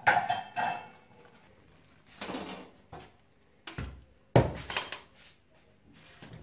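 Aluminium cooking pot full of boiled mahua knocking and clanking as it is lifted off a gas stove and set down. There are several separate knocks, with the loudest about four and a half seconds in.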